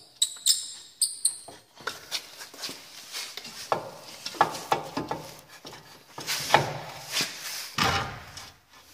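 Metal clinks and scrapes of hand work on a car's front suspension strut during refitting: a few sharp ringing metallic clicks at first, then a run of irregular scraping and knocking.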